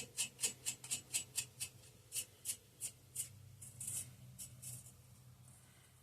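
Ratchet wrench clicking in a quick, even series of small metallic clicks, about four a second, while running nuts down onto engine studs; after about three seconds the clicks thin out to a few scattered ones.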